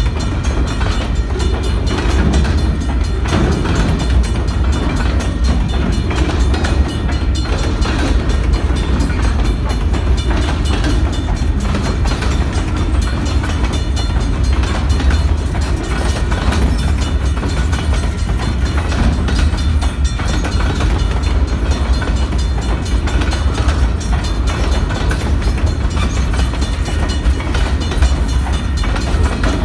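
Open-top hopper cars of a freight train rolling past close by: a steady low rumble of steel wheels on rail, with a running clatter of wheel clicks.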